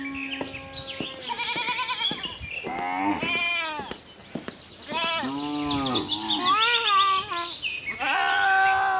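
Farm animals bleating, a string of calls with a wavering pitch and a short lull about four seconds in.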